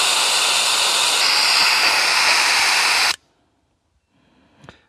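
Air hissing steadily out of two 4WD tyres through a MaxTrax Indeflate dual-tyre deflator as the tyres are let down. The hiss cuts off abruptly about three seconds in, followed by near silence and a faint click near the end.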